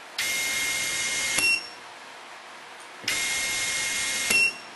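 KILEWS SKD-BE brushless electric screwdriver running twice with a steady whine, about a second each time. Each run ends in a sharp click and a short high beep from the tool's built-in screw counter.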